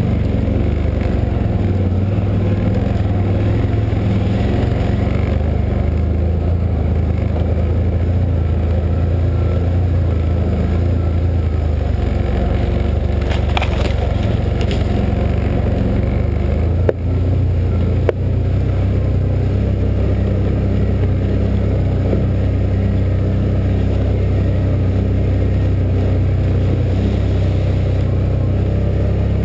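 2013 Can-Am Outlander 1000 Max XT ATV's Rotax V-twin engine running steadily under way. Around the middle, brush scrapes along the machine, and a little later there are two sharp knocks about a second apart.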